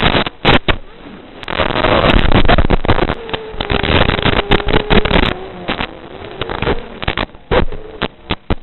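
FPV racing quadcopter's brushless motors whining and wavering in pitch, heard over a crackling analog video-link audio feed full of hiss and static bursts as the radio signal breaks up.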